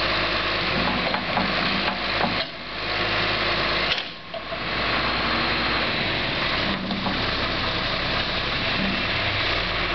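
John Deere 710D backhoe's diesel engine running steadily, its level dipping briefly twice, about two and a half and four seconds in.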